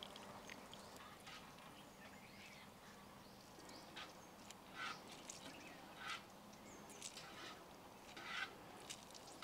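Near silence, with about five faint, short bird calls roughly a second apart from about midway on.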